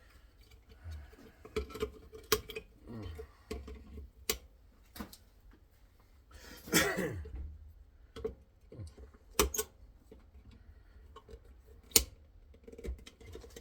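Metal parts of a heatsink teardown being handled: scattered sharp clinks and knocks, with a longer scraping rattle about seven seconds in and the loudest knock near the end.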